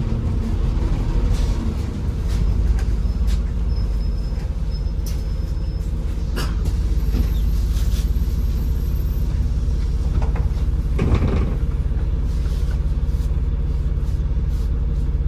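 Inside a MAZ-203 city bus under way: a steady engine drone and road rumble, with scattered short knocks and rattles.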